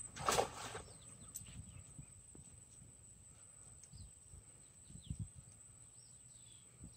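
A brief loud rushing noise about half a second in, then small birds chirping faintly in short falling notes over a steady high-pitched whine, with a few soft low knocks.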